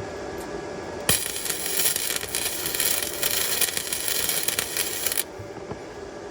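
Electric welder's arc crackling in one steady run of about four seconds. It starts about a second in and cuts off sharply: a tack weld on the steel exhaust pipe.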